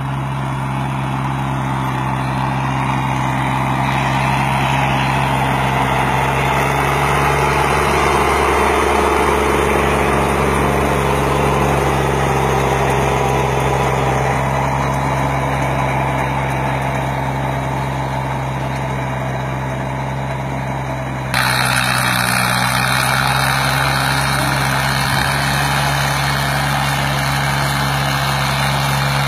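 Sonalika mini tractor's small diesel engine running steadily under load while it pulls a cultivator through ploughed soil. About two-thirds of the way through, the sound jumps abruptly to a brighter, hissier tone.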